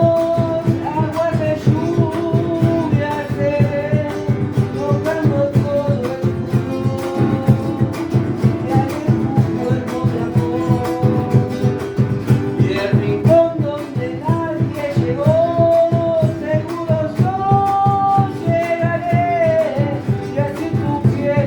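A song: a singing voice carrying the melody over guitar accompaniment with an even beat.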